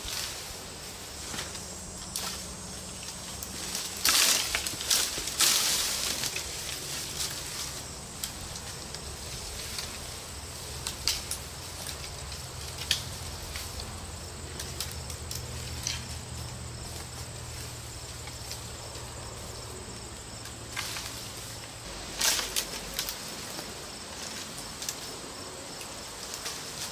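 Dry brush and cut branches rustling and crackling as they are handled and dragged, loudest about four to six seconds in and again near the end, with scattered snaps. A thin steady insect drone runs underneath.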